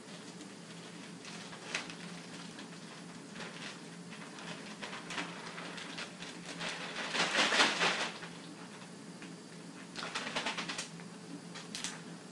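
Clear plastic sterile drape crinkling and rustling as it is handled and unfolded, in crackly bursts, loudest about seven seconds in and again about ten seconds in.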